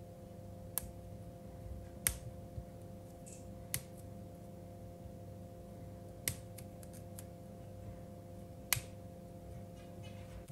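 Fresh broccoli florets being snapped apart by hand over a wooden cutting board: about five sharp, crisp snaps a second or two apart, with a few smaller ticks between them, over a faint steady hum.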